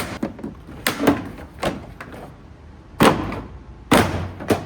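Plastic interior trim being pried and yanked off a 1992 Honda Civic: a series of sharp knocks and clunks, the loudest about three seconds in.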